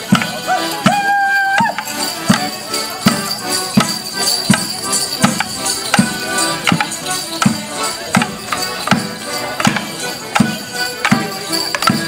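Border morris dance tune played on accordions, with a sharp, regular beat of knocks about every three quarters of a second.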